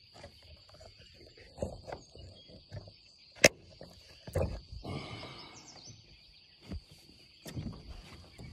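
Handling noise in a small boat: scattered soft knocks and rustles, with one sharp click about three and a half seconds in, over a faint steady high-pitched drone.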